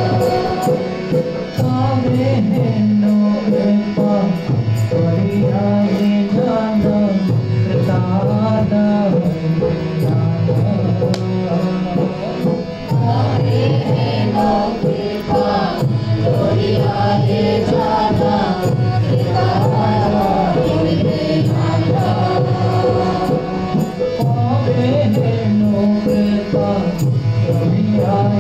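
Kirtan: a man sings a devotional Hindu chant to harmonium accompaniment, with small hand cymbals and percussion keeping a steady beat.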